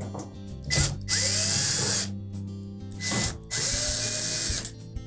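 Cordless drill-driver backing out Phillips screws from the top edge of a dryer's front panel: two runs of the motor about a second long each, one about a second in and one past the three-second mark, each rising in pitch as it spins up.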